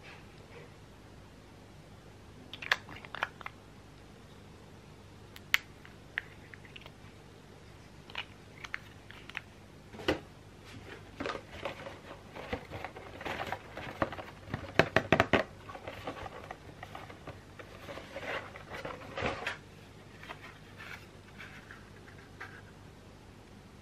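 Cosmetic packaging handled and opened by hand: small plastic containers give scattered clicks and taps, then a cardboard box is opened with a stretch of rustling and scraping and a quick run of sharp clicks in the middle.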